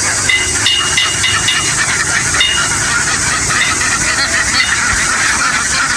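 A very large flock of ducks calling all at once, a steady dense din with short higher calls standing out in the first couple of seconds, over a low rumble.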